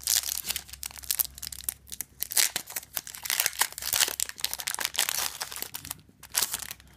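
Foil wrapper of a Yu-Gi-Oh! booster pack being crinkled and torn open by hand: a dense crackling with many sharp clicks, easing off near the end.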